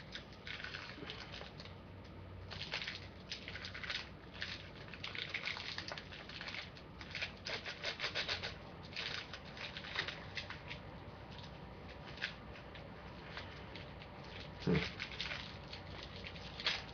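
Plastic wrapper of a lollipop crinkling and crackling in short, irregular rustles as it is picked and pulled open by hand, with a brief low thump near the end.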